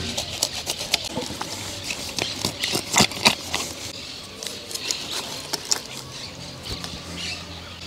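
Knife blade scraping scales off a dientudo on a wooden log while cleaning it: a run of quick, irregular rasps and clicks, the loudest pair about three seconds in.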